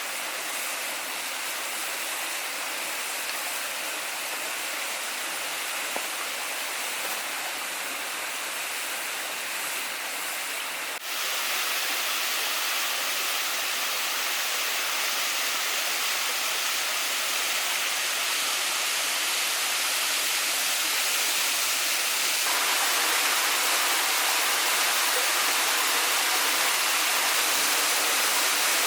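Steady rush of a waterfall. About a third of the way in the sound jumps suddenly louder and brighter, and it steps up again a little past two-thirds of the way through.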